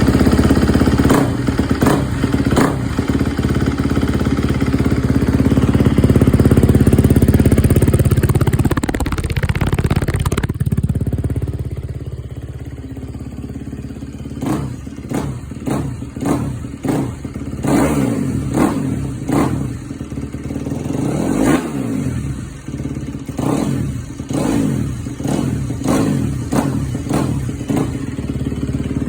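2022 Kawasaki KX250's four-stroke single-cylinder engine running through a new FMF 4.1 slip-on muffler just after its first start on the new pipe. It runs fast and loud for about ten seconds, drops to idle, then is revved in many short throttle blips.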